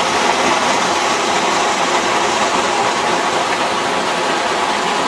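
Small waterfall splashing into a rock pool: a loud, steady rush of water.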